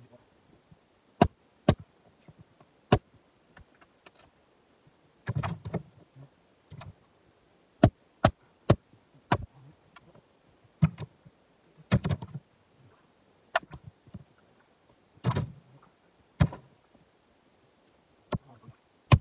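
Jarrah firewood being split and handled with an axe: sharp hard-wood knocks at irregular intervals, with three heavier, duller thuds of wood pieces landing.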